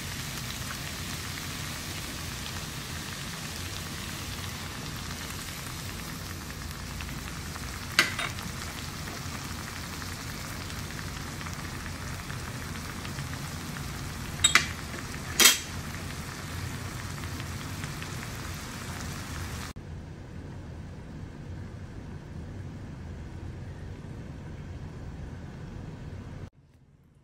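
Sliced bamboo shoots and pork belly sizzling steadily in a pan, with three sharp clicks about a third and halfway through. The sizzle turns quieter and duller about two-thirds of the way in.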